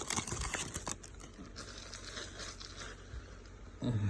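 Baseball card pack wrapper tearing and crinkling as it is opened, loudest in the first second, then faint rustling as the cards are handled.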